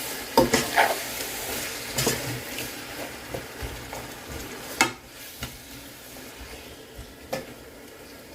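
Seasoned chicken sizzling in a pan on high heat while being stirred, a utensil scraping and knocking against the pan a few times. The sizzle drops lower after about five seconds.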